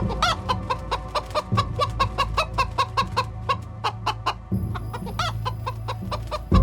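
Chickens clucking in a quick, busy series of short calls, about five a second, over low steady background music.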